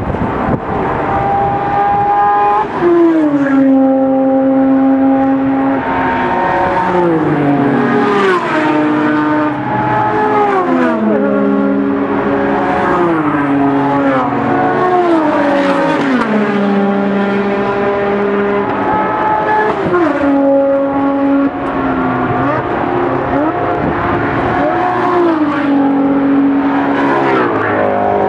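A steady stream of sports racing cars at full throttle, one after another, coming out of a chicane and passing close beneath. Each engine note holds, then drops sharply in pitch as the car goes by. Pass follows pass every one to three seconds, with several engines often heard at once.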